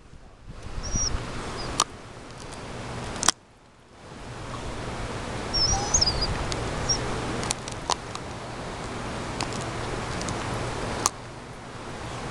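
Dog gnawing on a woody root, with a handful of sharp cracks as its teeth work the wood. Birds chirp faintly twice.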